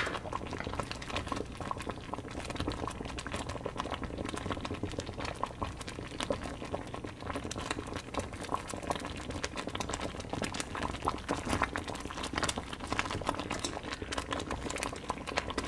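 Thick chicken mole sauce boiling in a saucepan, a steady stream of small bubbling pops.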